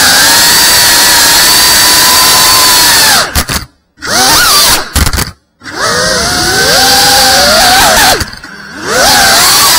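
Tiny whoop FPV drone's small motors whining loudly, the pitch rising and falling with the throttle. The sound cuts out twice for a moment around the middle and dips again near the end.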